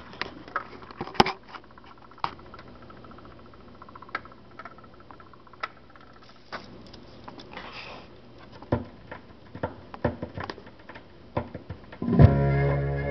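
A 45 rpm single playing on a console record player: a quiet stretch of surface noise with scattered clicks and pops from the stylus in the groove, then music with guitar and bass starts loudly near the end.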